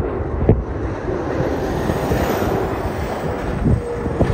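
Jet noise from a Boeing 777-300ER's GE90 turbofans as the airliner passes low overhead on final approach: a steady, loud rumble, with wind buffeting the microphone.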